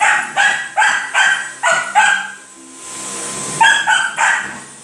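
A dog barking in a quick run of about seven barks, about three a second, then pausing and letting out three more barks in quick succession near the end.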